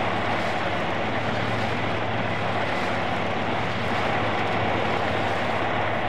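Farm machinery, a tractor-driven ensilage cutter, running steadily: an even mechanical din with a steady low hum and no breaks.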